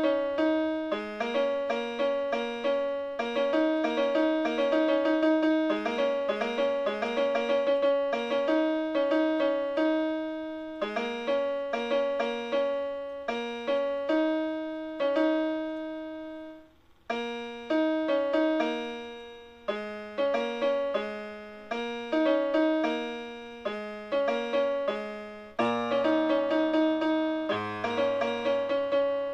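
Electronic home keyboard with a piano voice, played through its own speakers: a quick figure of separate notes repeated over and over, breaking off briefly about seventeen seconds in. Low bass notes from the left hand join near the end.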